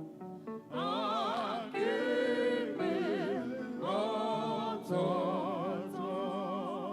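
Worship singing: a voice holds several long notes with wide vibrato over steady sustained accompaniment.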